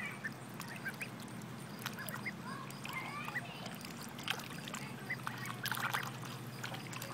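Young white ducks feeding from a metal pan: short peeps and soft quacks at irregular intervals, mixed with scattered clicks of bills dabbling in the pan.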